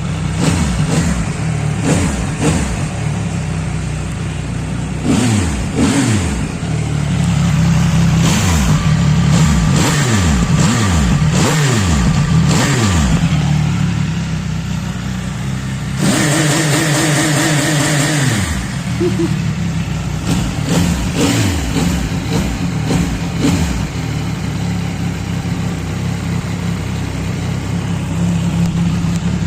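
CFMoto SR-R sport bike engine and exhaust revved over and over, the note rising with each throttle blip and falling back, then settling to a steadier run in the second half.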